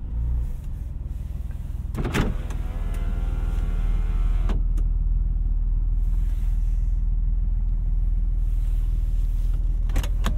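A 1997 Porsche 993 Twin Turbo's air-cooled twin-turbocharged flat-six runs under way with a steady low drone. About two seconds in, a whoosh leads into a slightly rising whine that lasts about two seconds and ends in a click. A couple of sharp clicks come near the end.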